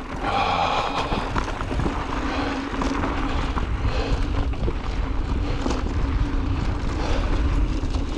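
Mountain bike riding on a dirt trail, heard from a camera on the bike or rider: a steady low rumble of wind on the microphone and tyres on dirt, with scattered clicks and knocks from the bike rattling over the trail.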